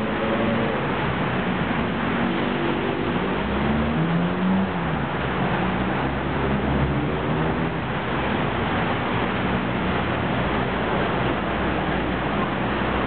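Steady hiss of rain and city traffic, with low humming tones that drift up and down in pitch as a BTS Skytrain electric train approaches slowly along the elevated track.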